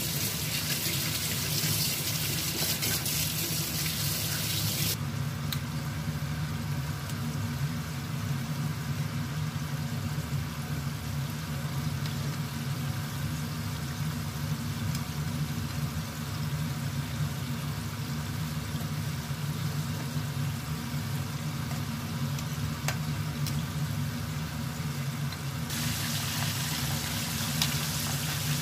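Floured chicken pieces frying in hot oil: a steady sizzle with a few faint pops, over a low steady hum.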